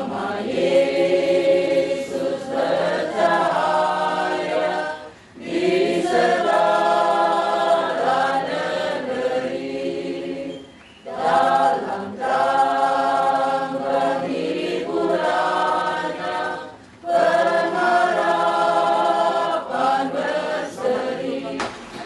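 A choir of mixed voices singing together, in held phrases of about six seconds with brief pauses between.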